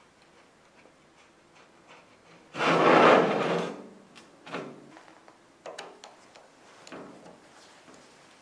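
Heavy cast-iron bottle jack scraping as it is slid and turned on the work mat, one loud scrape of just over a second a few seconds in. Several lighter knocks and clicks of the socket tool on the base screws follow.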